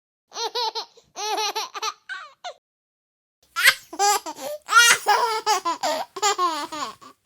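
A baby laughing in high-pitched, rapid bursts of short 'ha' pulses: three short runs of giggles, a pause of about a second, then a longer, louder stretch of laughter.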